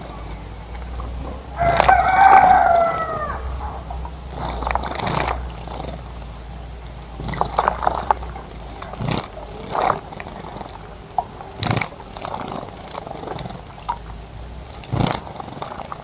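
A rooster crows once about two seconds in: a single drawn-out call that falls in pitch at its end. Around it come scattered short sharp clicks and small high chirps from other birds.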